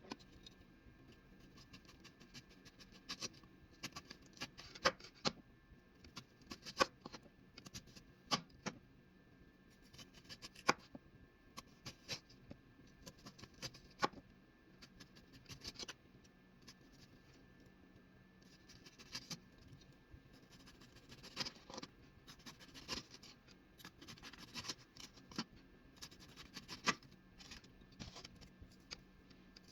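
Kitchen work noises while cooking: irregular sharp clicks, taps and knocks, as of utensils, dishes and containers being handled, every second or two. A faint steady hum runs underneath.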